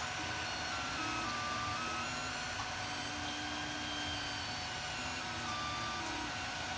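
3D printer running, its stepper motors whining in short tones that jump to a new pitch with each move, over a steady fan hum.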